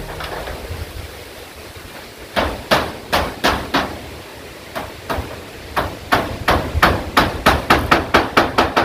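Hammer driving nails into corrugated zinc roofing sheets: sharp metallic strikes in short runs starting about two seconds in, quickening to about three blows a second near the end.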